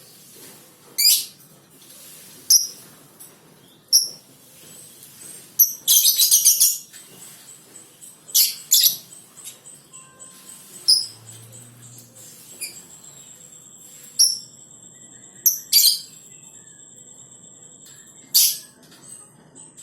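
Lovebird giving short, shrill, high-pitched chirps every second or two, with a rapid chattering run about six seconds in.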